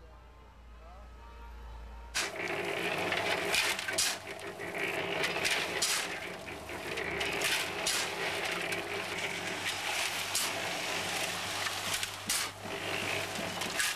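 Building-site work: irregular knocks and taps of hand tools on wood and brick over a steady background din, starting suddenly about two seconds in after a quieter stretch with a low hum.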